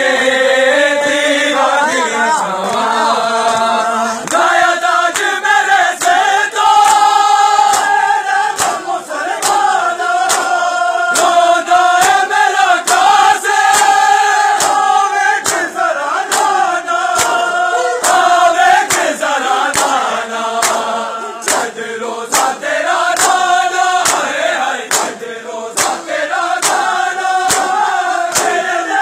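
A group of men chants a Punjabi noha (a Shia lament) in unison. A steady beat of sharp slaps keeps time, the chest-beating of matam.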